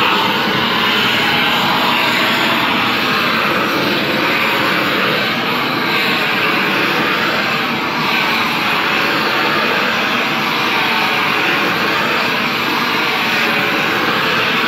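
Hose-fed gas blowtorch flame hissing steadily and loudly as it heats a pipe end to soften it for widening.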